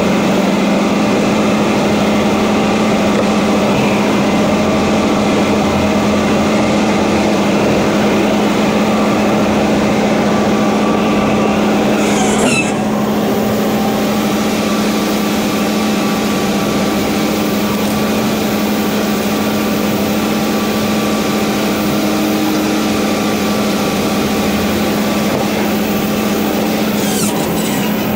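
Log loader's diesel engine running steadily at high revs, driving the hydraulic saw through a cut. Two brief sweeping sounds come about halfway through and again near the end.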